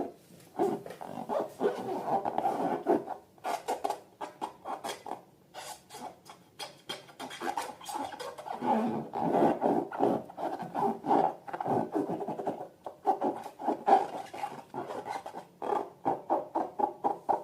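Slime and balloons being worked by hand: rapid, irregular rubbing and squishing strokes with short pauses.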